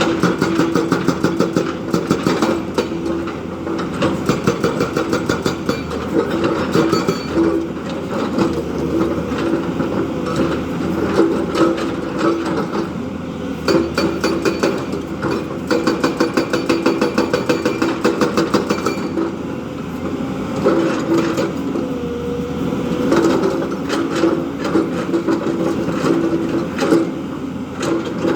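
Diesel engine of a JCB 3DX backhoe loader running while working. Runs of fast, even clattering pulses come and go over a steady engine note.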